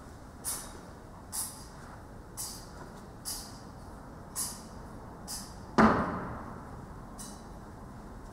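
Soft, short taps about once a second, then a single loud knock about six seconds in that rings on in the reverberant church.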